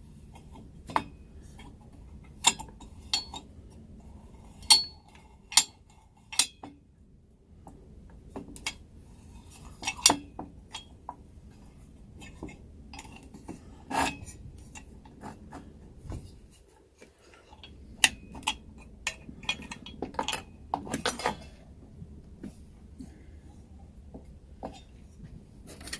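Small metal parts of a Coleman 502 camp stove clinking and knocking against each other and the bench as they are handled and fitted during reassembly. The clicks come irregularly, a dozen or more sharp ones, with a low steady hum underneath.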